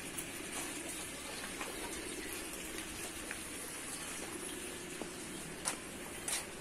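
Steady background hiss with a few light knocks and clicks, two of them a little louder near the end, as a plastic jerrycan is handled and hung against a palm trunk.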